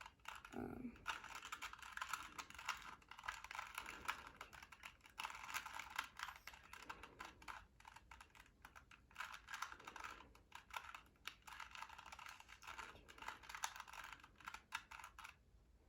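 Rapid plastic clicking and clacking of a 2x2 Rubik's Cube being turned by hand, in quick irregular runs of twists that stop shortly before the end.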